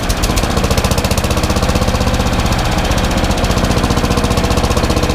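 Troy-Bilt CS4325 chipper shredder's single-cylinder Briggs & Stratton 1100 series engine running steadily at throttle, with a rapid, even firing beat.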